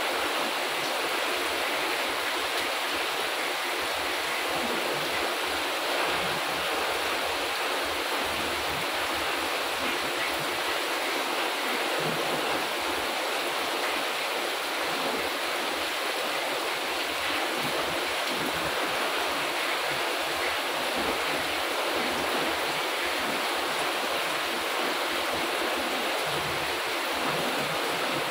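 Heavy rain falling steadily on garden plants and wet paving, an even, unbroken hiss.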